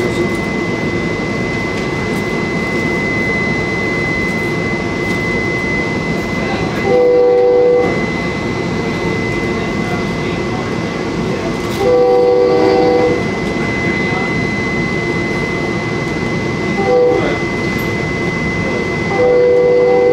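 Commuter rail train running at speed, heard from inside a passenger coach, with a steady high-pitched tone over the rumble of the wheels. The locomotive horn sounds two long blasts, one short and a final long one: the standard signal for approaching a grade crossing.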